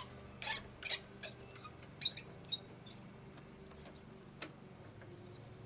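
Plastic air box clips and housing on a Toyota Celica's intake being worked loose by hand: a quick run of clicks and small plastic squeaks, then one more click a little later, over a faint steady hum.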